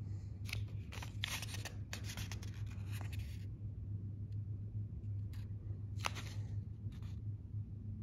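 Paper pages of an instruction booklet rustling and crinkling as it is handled: a quick cluster of rustles in the first few seconds, then a few single crinkles. A low steady hum runs underneath.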